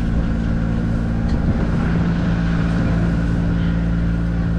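Engine of a park ride-on train running steadily while being ridden: a constant low drone made of several even, unchanging tones.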